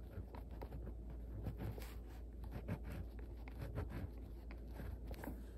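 Pen writing on a paper form: faint, irregular scratching strokes.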